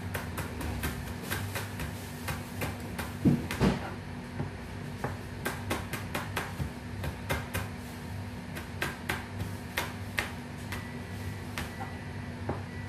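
Large kitchen knife chopping bird's eye chilies and garlic on a cutting board: a quick, irregular run of sharp taps, with two heavier thumps about three and a half seconds in, over a steady low hum.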